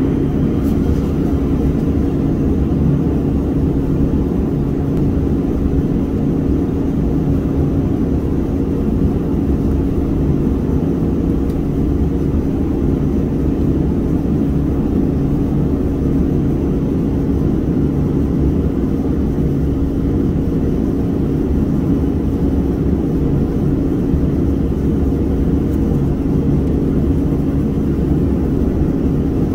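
Steady low hum of a running machine, with one constant tone in it and no change in level.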